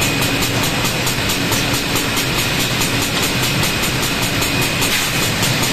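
Holztek Tectra-328F CNC panel saw running: a steady mechanical drone with a constant high whine and rapid, even ticking.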